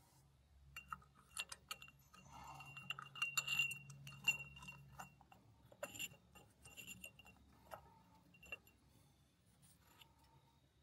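Scattered light metallic clinks and clicks from hand tools and small-engine parts being handled, busiest in the first six seconds, then sparse. The engine is not running.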